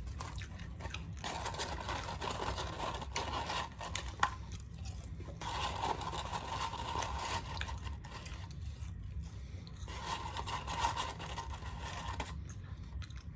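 Paper fries bag crinkling and rustling as it is handled, with some chewing.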